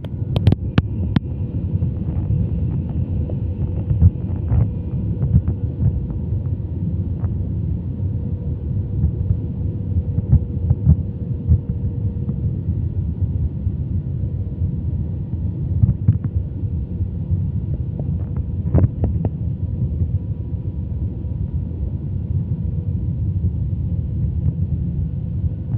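Airliner cabin noise in flight on approach: a steady low rumble of engines and airflow, with a faint steady hum over it and a few small clicks.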